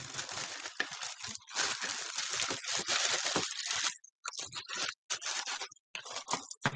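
A bag rustling and crinkling as small items are put into it by hand, in stop-and-start bursts with short pauses.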